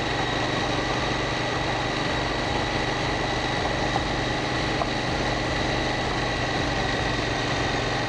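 KTM 790 Duke's parallel-twin engine running at an even pace while the motorcycle is ridden, with a thin steady high tone over it.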